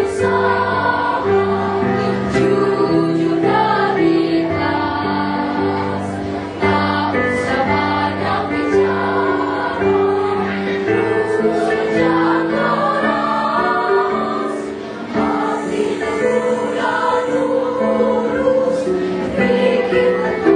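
A choir singing a song with instrumental accompaniment, the voices holding long notes over steady, stepping chords.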